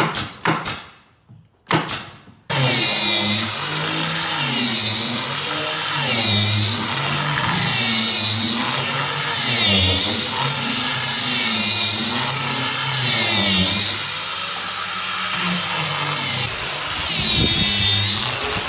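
A few sharp knocks, then a power tool starts about two and a half seconds in and runs loudly, its pitch dipping and recovering every second or two as it is loaded.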